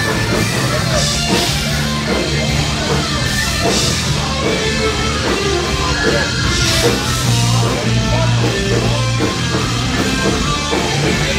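Loud rock music with electric guitar and drums over a steady low bass line.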